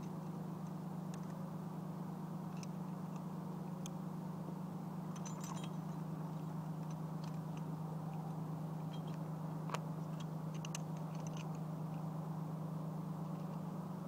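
A steady low hum, with scattered light metallic clicks as a rope ascender and carabiner are handled and clipped on a climbing rope.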